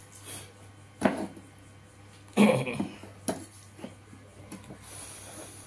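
Close-up eating sounds of a man eating rice by hand: chewing and lip smacks, the loudest about two and a half seconds in, with breathing through the nose between them, over a faint steady hum.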